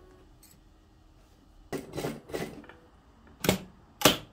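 Sewing machine stopped; hands handling white cotton fabric at it make a few short rustles and knocks, the loudest two near the end.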